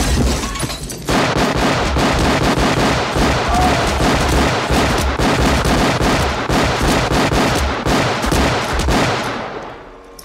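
A long burst of rapid gunfire, many shots a second without a break, starting about a second in and fading out near the end. Before it comes the low rumbling tail of an explosion.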